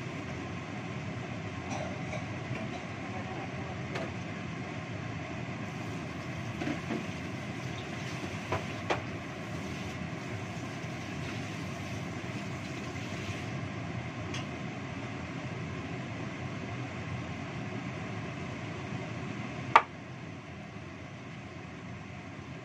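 Gas stove burner running steadily under a wok of simmering milky sauce, an even rushing noise with a few light clicks. A single sharp knock comes near the end, after which the noise is a little lower.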